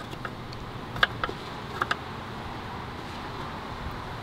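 Four sharp clicks in two pairs, about a second in and just under two seconds in: a screwdriver tip working the plastic release tab of a push-and-pull hose connector. Underneath is a steady low hiss.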